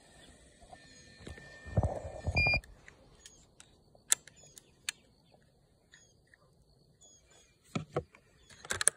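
Plastic clicks and handling noise from a hand-held fiber cleaver being opened and worked, loudest about two seconds in, with a short electronic beep from the fusion splicer at the same moment. Faint bird chirps sound behind.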